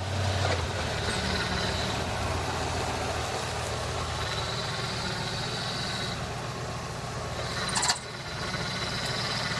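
Rebuilt car engine idling steadily, with a thin high whine over it. A short sharp click comes near the eighth second.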